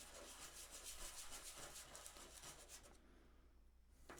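Faint, rhythmic strokes of sandpaper rubbing on a wooden chess piece by hand. The strokes stop about three seconds in and start again near the end.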